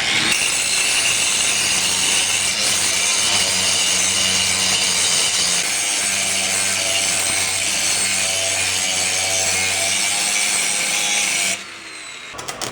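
Steady, harsh, hissing noise of electric metalwork on the steel boxing plates, flux-core welding or grinding, with a low hum under it, running for about eleven and a half seconds and then cutting off suddenly.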